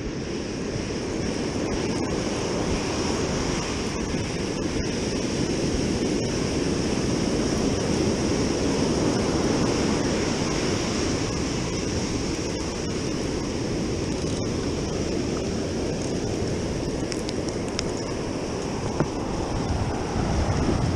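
Ocean surf breaking and washing up a sandy beach, a steady rushing wash, with some wind on the microphone.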